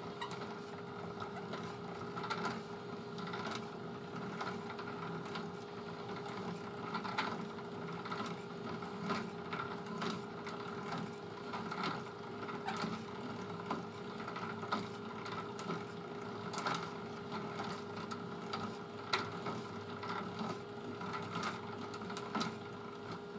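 Electric drill running slowly with a steady hum, turning a knitting needle in its chuck, with light irregular clicks as a fine copper wire is wound between the turns of a wire coil.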